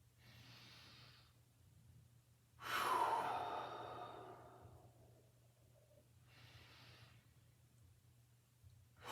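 A person breathing deeply and slowly through a breathing drill: a quiet breath in, then a long, louder breath out that fades away, another quiet breath in, and a louder breath out starting near the end.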